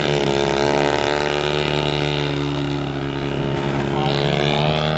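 Radio-controlled model airplane's engine running at high power in flight. Its pitch drops as it passes just after the start, holds steady, then climbs again near the end.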